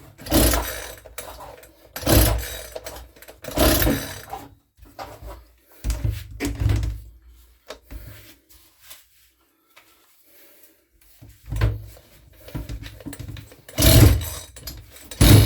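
Makita EM2600 25.7cc two-stroke strimmer engine being pull-started by its recoil starter, about seven short cranking pulls with pauses between them and a longer gap in the middle; the engine does not keep running.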